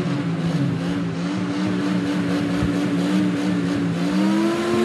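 Off-road jeep's engine running at steady revs, its pitch climbing a little near the end.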